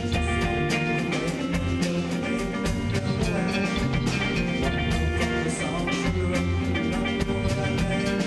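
Live rock band playing: a drum kit with cymbal hits under an electric bass and guitar, with steady driving low end.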